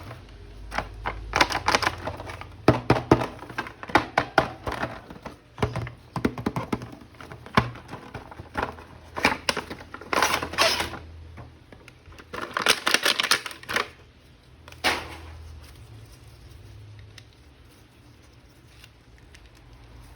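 A toy package being opened and a plastic action figure handled: many quick clicks, taps and short rustling bursts, dying away about three-quarters of the way through.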